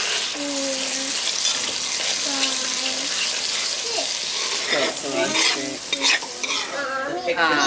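Spice paste of garlic, ginger and chili flakes sizzling in hot oil and a little water in a pot while a metal spoon stirs it. The sizzle thins out near the end.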